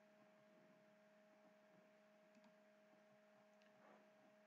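Near silence: a faint, steady hum in the recording.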